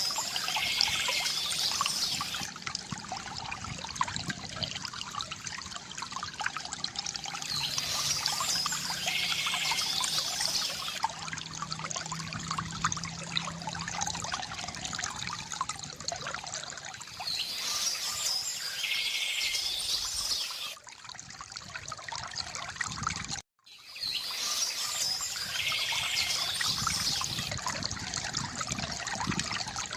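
Water trickling and pouring steadily from a bamboo fountain spout into a basin, with birds chirping in bursts that recur four times. The sound cuts out for a moment about two-thirds of the way through.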